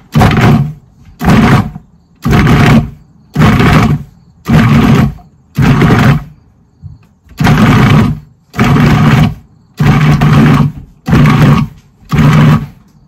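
Food processor pulsed about a dozen times, roughly once a second with a short break midway, each pulse a brief burst of motor and spinning blades. The blades are cutting frozen butter into flour for pie crust.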